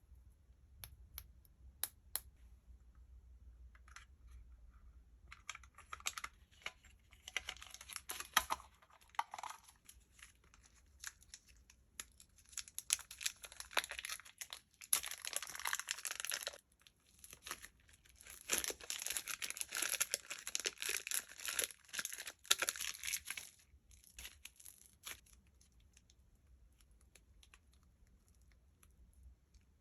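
Slime being squeezed and stretched by hand, crackling and popping in three spells of several seconds each, with scattered small clicks between.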